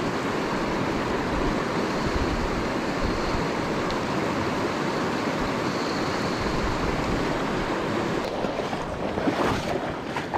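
Steady rush of a fast-flowing river running over stones, an even noise that holds at one level. Near the end a few short rustles and knocks from handling break in.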